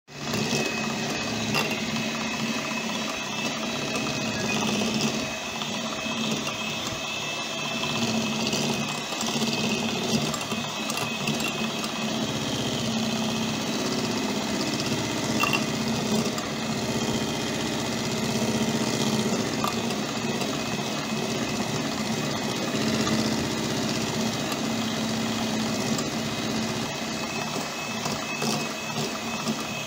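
Electric hand mixer running steadily, its beaters whipping cream cheese with a little cream in a plastic bowl.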